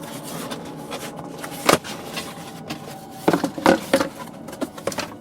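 A box and its packaging being handled: scraping and rubbing with scattered sharp knocks, and a quick run of knocks about three and a half seconds in.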